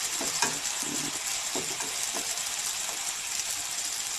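Battered banana fritters sizzling steadily in hot oil in a frying pan.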